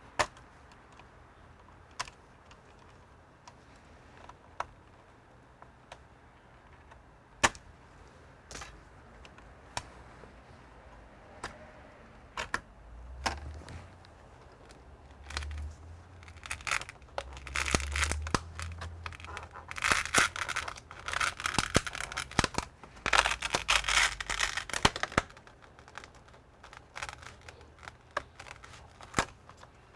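Hands working on a computer on a bench: scattered sharp clicks and taps of tools and plastic parts, then about halfway through several seconds of crinkling and tearing, like tape or plastic film being peeled, with a few low thumps.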